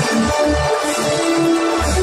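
Electronic dance music with deep bass notes, played over the stadium's sound system.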